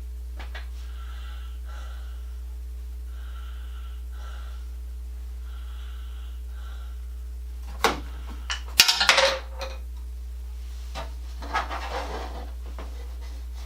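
Handling noise from exercise-bike parts being worked on: a burst of clicks and clattering about eight to nine and a half seconds in, then a shorter rustle and knock near twelve seconds, over a steady low hum.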